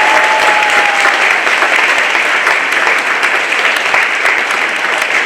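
Audience applauding steadily, a dense patter of many hands, with one held cheer from the crowd in the first second.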